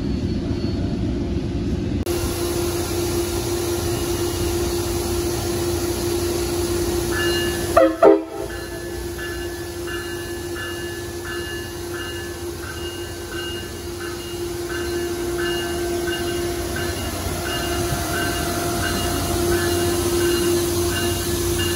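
Tri-Rail locomotive 504 moving past the platform with its engine running steadily, and a brief loud double horn blip about eight seconds in. From about seven seconds in, a bell rings steadily about twice a second.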